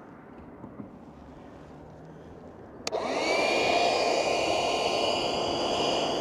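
Parkside cordless handheld vacuum cleaner switched on with a click about three seconds in, its motor whine rising briefly and then running steadily as it sucks up iron filings around a freshly cut roof opening.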